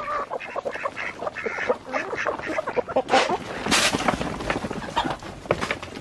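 Chickens calling around the feet, with a burst of rustling noise about three and a half seconds in.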